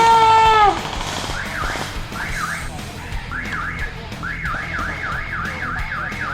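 A loud, steady horn-like tone drops in pitch and cuts off under a second in. Then an electronic alarm warbles rapidly up and down, about two to three sweeps a second, in short broken runs at first and continuously from just past the middle.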